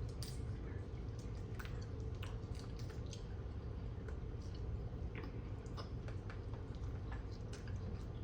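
Close-up eating of mussels and shrimp: chewing with irregular small wet clicks and smacks, over a steady low hum.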